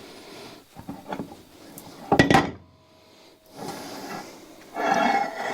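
Heavy bench vise's movable front jaw being worked off its slide: metal knocking and sliding, with a loud clank about two seconds in and a longer scraping, rubbing stretch near the end.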